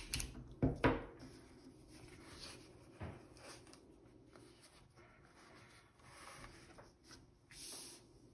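Hands laying and pressing masking tape down onto illustration board: a few sharp taps in the first second and another about three seconds in, then soft rubbing and handling noise.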